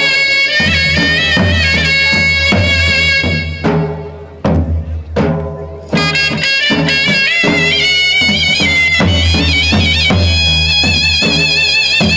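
Folk dance music for a Charani Ras: a high, reedy wind melody with ornamented pitch bends over regular drum beats. The melody breaks off for about two seconds around four seconds in, then comes back.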